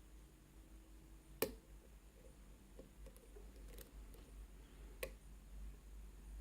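Faint small metallic clicks of a lock pick working the pins of a six-pin Medeco lock, with a sharp click about a second and a half in and another near the end, over a low hum.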